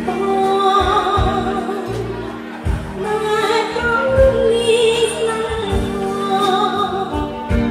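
A woman sings a classic Khmer song live into a handheld microphone, holding notes with vibrato, over live band accompaniment with a drum beat.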